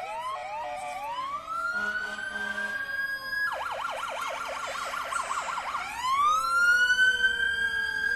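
Emergency vehicle sirens sounding as a fire truck procession approaches. A slow rising wail switches to a fast yelp about three and a half seconds in, then goes back to a rising wail that is loudest near the end. A second, lower siren tone can be heard under it.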